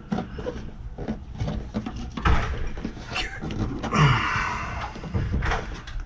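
Work noise from repairing a condensate drain line: a run of knocks and clicks, one louder knock a little over two seconds in, and a brief hiss about four seconds in.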